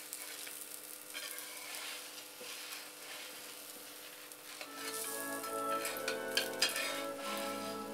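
Uttapam sizzling faintly in oil on a nonstick tawa while a steel spatula scrapes and slides under it. Background music comes in about halfway through.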